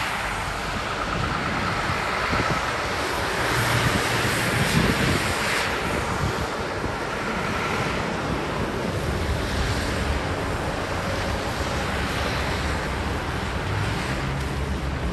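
Storm wind blowing steadily and gusting on the microphone, with low buffeting rumbles.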